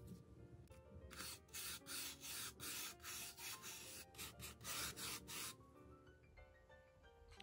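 A stiff flat paintbrush scrubbed in quick back-and-forth strokes across a textured model brick wall, brushing pale paint onto the raised bricks. The rubbing strokes come about three a second, starting about a second in and stopping after about five and a half seconds.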